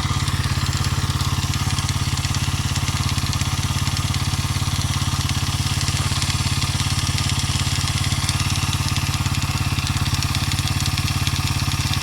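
Racer Forester RC200LT motorcycle's single-cylinder engine idling steadily, with an even rhythmic pulsing. It has a knock in the engine that the owner cannot place.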